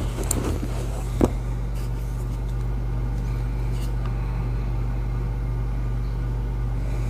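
Steady low hum throughout, with a couple of sharp metallic clicks in the first second or so as shells are pushed into the magazine tube of a Mossberg 500 pump shotgun.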